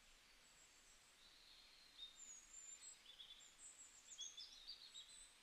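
Near silence: faint room tone, with faint high chirping from about two seconds in.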